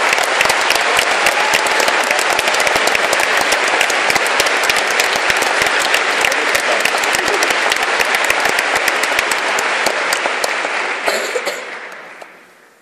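Audience applauding: dense, even clapping that dies away over the last two seconds or so.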